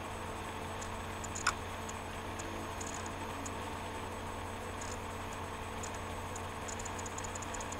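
Steady low hum with faint scattered clicking: one sharper click about one and a half seconds in, and a quick run of light clicks near the end.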